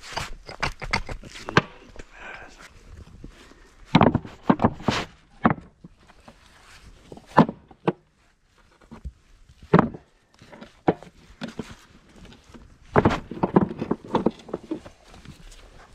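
Rocks knocking and clattering as they are set and dropped by hand into a steel tractor loader bucket already heaped with stones. The sharp clacks come in irregular clusters, the busiest about four seconds in and again near the end.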